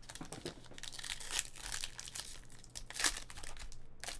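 Foil trading-card pack wrapper crinkling and tearing as it is pulled open by hand, a dense run of small crackles with a sharper crackle about three seconds in.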